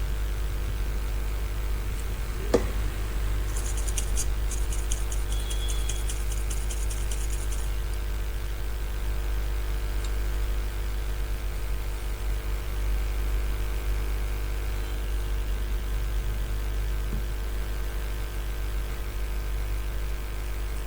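Steady low electrical hum with a faint hiss, broken by a single sharp click about two and a half seconds in and a brief run of rapid, faint high-pitched ticking a little later.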